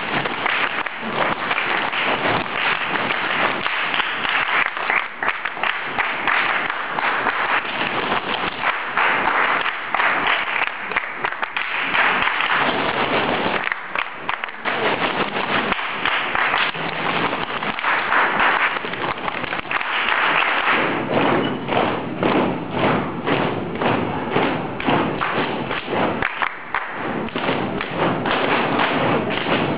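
A large ensemble playing body percussion in rhythm: a dense run of thumps and taps made with hands and bodies instead of instruments, breaking off briefly about halfway and again near the end.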